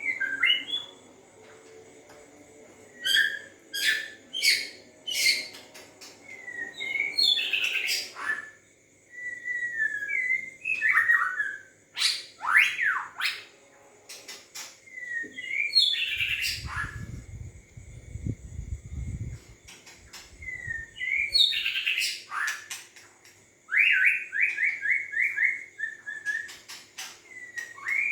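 White-rumped shama singing in separate varied phrases of whistles, pitch glides, sharp click-like notes and a fast falling trill near the end, a song likened to a car horn.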